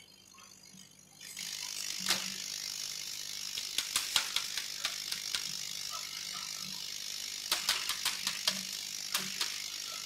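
Cut acrylic pieces being handled and lifted off a laser cutter's metal honeycomb bed: irregular clicks and light clatter over a steady hiss that starts about a second in.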